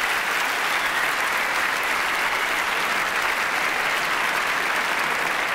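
Live audience applauding steadily at the end of a stand-up comedy set.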